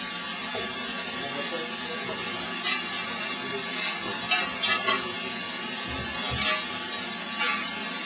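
Steady rushing, crackling noise of a working iron bloomery furnace, with a few short scrapes and knocks of iron tools at the glowing base of the furnace, the loudest cluster about four and a half seconds in.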